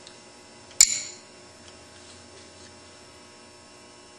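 A single sharp metallic clink of a small steel part striking metal, with a short ring that dies away, about a second in.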